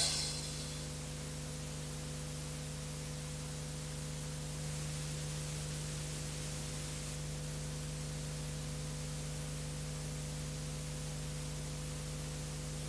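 Steady hiss with a low electrical hum, the background noise of an old video transfer, left after the dance track's last sound dies away within the first second.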